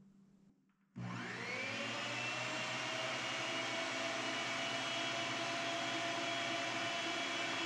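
Electric meat grinder switched on about a second in, its motor spinning up quickly to a steady whine over a low hum and running on as chicken meat is pushed down the throat with the stomper.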